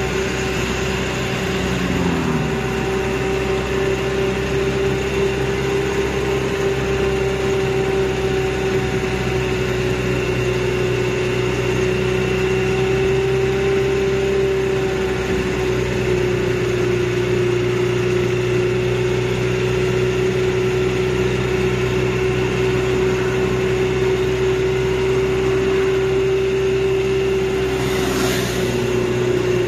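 A tourist land train's engine running with a steady hum.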